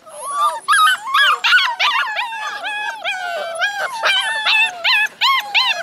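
A litter of Alaskan malamute puppies howling together: many high-pitched howls and yips overlapping, each rising and falling in pitch.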